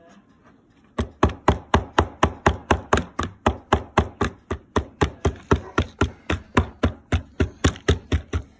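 A hand tool hammering on a chalky dig-kit block in a plastic bowl, chipping it apart to reach a buried toy. Sharp, even knocks about four a second, starting about a second in.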